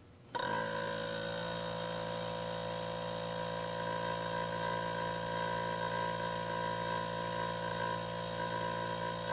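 Hermetic refrigerator compressor switched on, starting suddenly just after the start and then running with a steady, even hum that is not very noisy.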